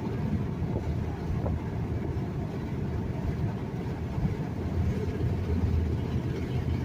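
Steady low rumble inside a truck's cab: engine and road noise.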